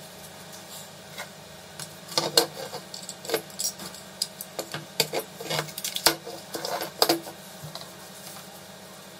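Hard plastic instrument-cluster parts and small tools being handled and set down on a table: a run of irregular clicks and knocks for about five seconds, starting about two seconds in.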